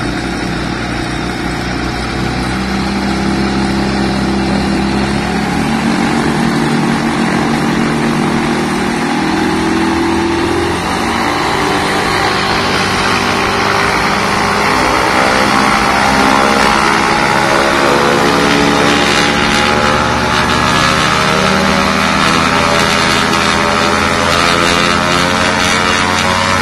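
Rotax 912 iS four-cylinder boxer engine of a Viper SD4 light aircraft running on the ground with its propeller turning. Over the second half the engine speed climbs steadily and the pitch rises as it is run up toward 5,500 rpm.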